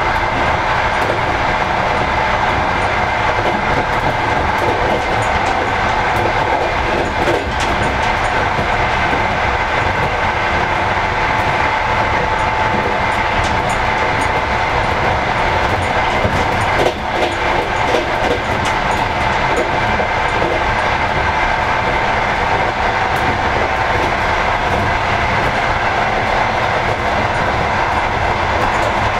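Passenger train running at speed, heard from the rear carriage: a steady rolling rumble of wheels on rail with a faint hum and occasional light clicks. There is one brief knock about seventeen seconds in.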